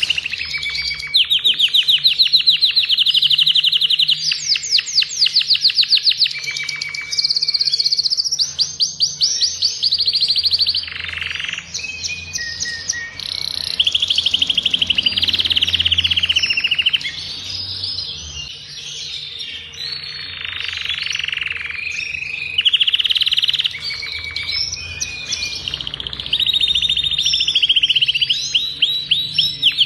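Adult male domestic canary of the agate colour variety singing without pause. It runs long, rapid trills and rolling phrases of one to three seconds each, one after another with only short breaks between them.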